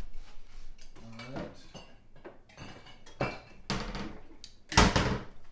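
Kitchen clatter: dishes and utensils knocking and clinking on a counter, several short knocks, with a loud clatter near the end.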